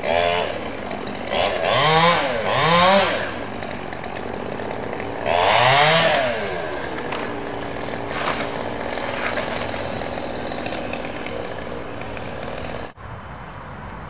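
Chainsaw up in a tree, revved up and back down several times, then running at a steady lower speed. The sound breaks off abruptly near the end.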